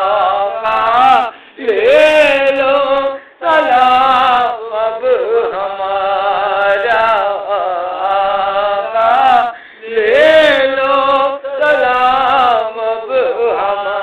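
A man singing an Urdu devotional salam in a chanting style: long, wavering, ornamented phrases broken by short pauses for breath.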